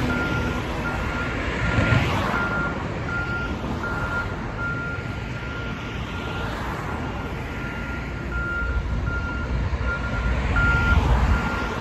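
Truck's reversing alarm beeping at one pitch, a short beep a few times a second without a break, over the low rumble of the engine and road traffic, which grows louder near the end.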